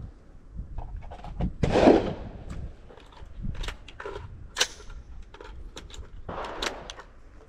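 Gunshots from a rifle-to-pistol transition: a loud shot about two seconds in, then smaller clicks and knocks of gun handling, and another loud shot near the end as the shooter fires the pistol.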